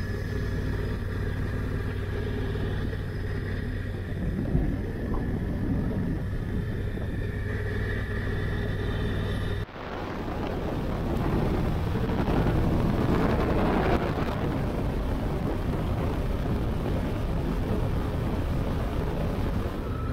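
Motorcycle engine running steadily under way, with wind rushing over the microphone. The sound cuts abruptly about ten seconds in, and after that the wind rush is louder and fuller.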